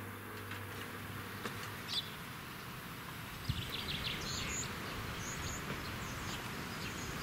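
Outdoor ambience: a steady hiss with small birds chirping, their short high chirps coming in a cluster around the middle.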